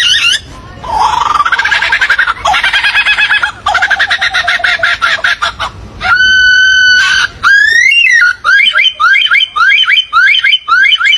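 Songs of several different birds in turn: a fast chattering trill lasting several seconds, then one long steady whistle, then a quick series of short rising whistled notes.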